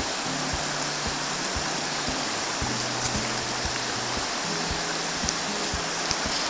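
Steady rush of river water over a shallow rocky riffle, with music playing over it: a bass line stepping between low notes and a steady beat of about two knocks a second.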